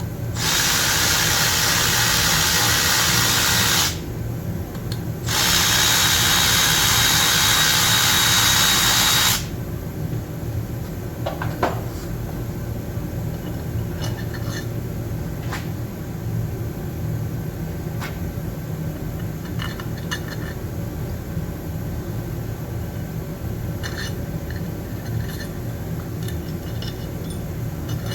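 A power tool runs in two bursts of about four seconds each, with a short pause between them. After that there are only light clicks and taps of metal parts being handled.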